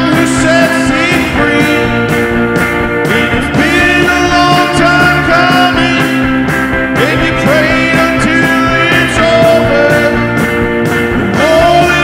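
A man singing a rock song while playing chords on an offset-body electric guitar, his voice gliding into held notes over the ringing guitar.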